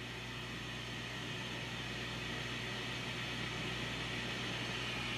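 Speaker of a 1971 Zenith hybrid color television (12B13C52 chassis) giving a steady hiss with a low hum, slowly getting louder as the sound comes up. No high-voltage crackle comes with it, because the set has no high voltage.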